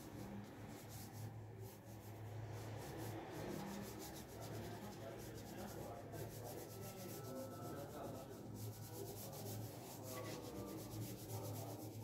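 Graphite pencil scratching and rubbing on paper in quick repeated strokes while shading, over a low hum.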